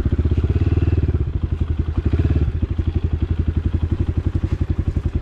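Dirt bike engine running steadily at low revs, an even, rapid putter.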